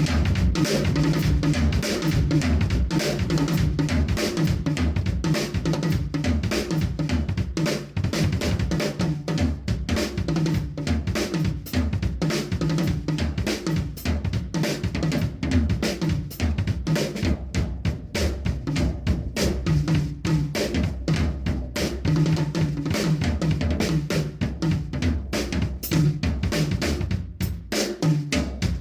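Drum kit played in a steady groove, with kick, snare and cymbals, over a bass guitar line played with the thumb. It stops near the end.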